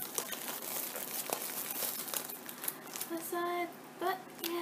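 Foil blind-bag pouch and thin plastic wrapper crinkling as a small keychain figure is pulled out, with a rapid patter of crackles. A few short vocal sounds from a woman come in about three seconds in.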